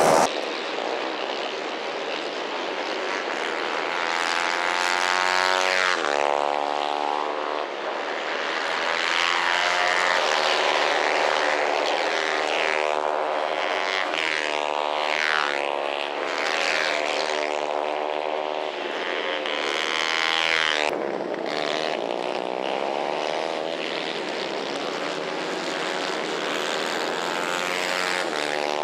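Several 150 cc racing kart engines running at once, their pitches overlapping and repeatedly rising and falling as the karts accelerate out of corners and pass by.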